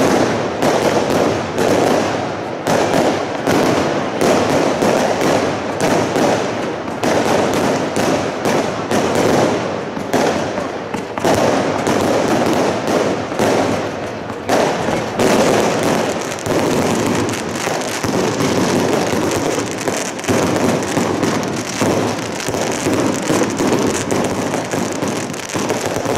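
Fireworks display: a rapid, dense run of aerial shell bursts and bangs, overlapping with crackling. About halfway through, the separate bangs thin into a more continuous crackle.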